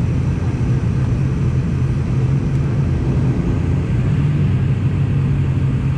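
Airliner engines running with a steady, unbroken low rumble and hum.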